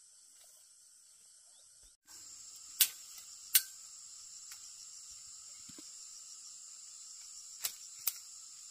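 Steady high-pitched insect chorus, like crickets or cicadas, that grows louder about two seconds in. Four short sharp clicks ring out over it, a pair about three seconds in and another pair near the end.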